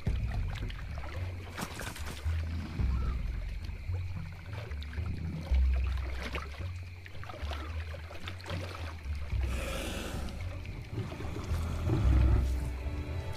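Water splashing and sloshing, with irregular low rumbling and sharp splashes here and there.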